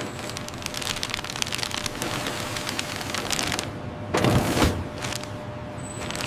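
Dense, rapid clattering and crackling of automated packaging machinery, with a heavier thump about four seconds in.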